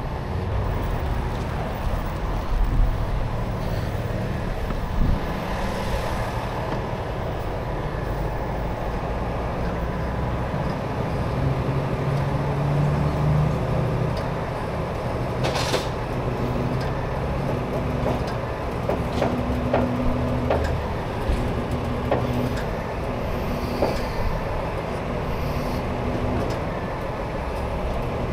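Heavy rotator tow truck's diesel engine running under hydraulic load as the boom lifts a box truck, its note stepping up and down as the controls are worked. One sharp clank rings out about halfway through.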